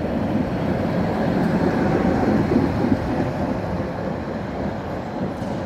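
A city tram rolling along street track close by. It gives a steady rumble of wheels on rail that swells as it passes, loudest about two to three seconds in, then eases.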